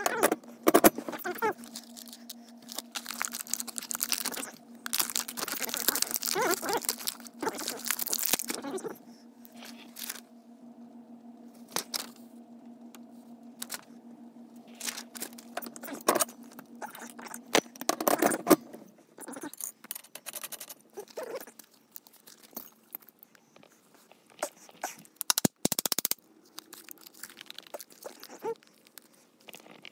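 Handling noise from assembling a dump cart by hand: rustling, crinkling and clinking of metal frame parts, nuts and washers and packaging, in irregular bursts that are busiest in the first third, with a sharp click later on. A steady low hum runs underneath and stops about two-thirds of the way through.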